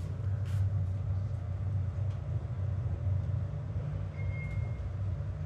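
Steady low rumble inside a Schindler lift car, with one short high beep about four seconds in.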